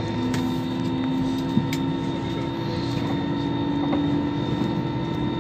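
Airbus A320-family airliner's jet engines heard inside the cabin while taxiing: a steady drone with a hum that rises slightly in pitch. A single click sounds about one and a half seconds in.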